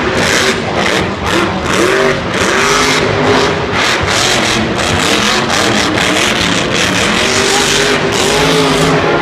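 Monster truck engine revving hard, its pitch climbing and dropping again and again as the throttle is blipped.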